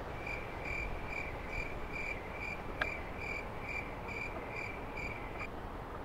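Cricket chirping sound effect: short, evenly spaced high chirps about two and a half times a second, which start just after the beginning and cut off abruptly about half a second before the end. A single sharp click about three seconds in.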